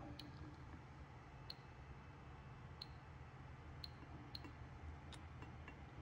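CD V-700 Geiger counter giving a few faint, irregular clicks, roughly one a second, as its probe picks up radiation from uranium glass.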